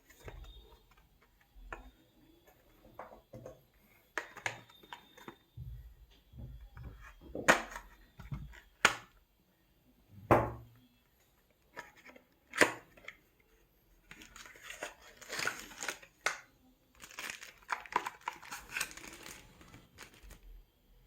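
Packaging of a charging cable being opened by hand: scattered sharp cracks and snaps, several loud ones in the middle, then long stretches of crinkling and tearing near the end.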